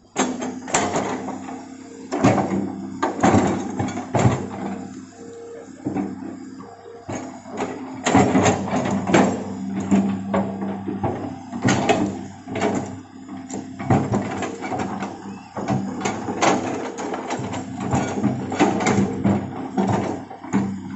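Hitachi hydraulic excavator's diesel engine running steadily under digging load, with irregular clanks and scrapes from the bucket and boom as it scoops and dumps soil.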